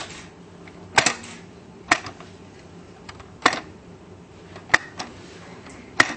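Teeth of a plastic shark-dentist toy being pressed down one at a time, each giving a sharp click; five clicks a second or so apart, and the jaw does not snap.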